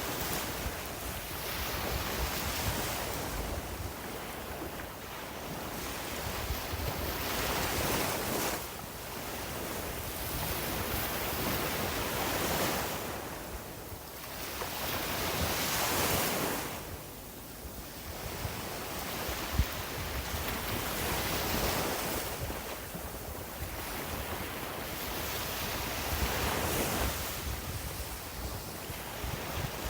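Sea waves washing onto a beach, surging and receding every few seconds, with wind rumbling on the microphone.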